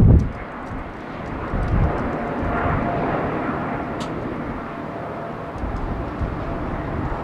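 Rolls-Royce Trent XWB turbofans of an Airbus A350-900 climbing out at takeoff thrust: a steady jet roar with a faint held whine in it.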